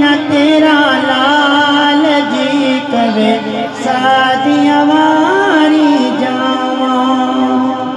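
Male voice reciting a naat (Urdu devotional song) with long, winding ornamented lines over a steady held note from backing voices, sung through microphones. Towards the end the lead voice settles into long held notes.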